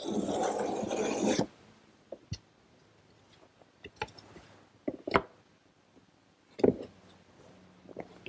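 A hand tool scraping along the edge of a wooden slat in one long stroke of about a second and a half while chamfering its corner, followed by a few light knocks of the wooden slats being handled.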